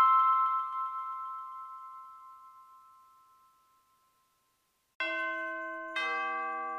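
Background music: a bell-like closing chord rings out and fades away over about three seconds. After a short silence, a new piece starts about five seconds in with slow chime notes struck about a second apart.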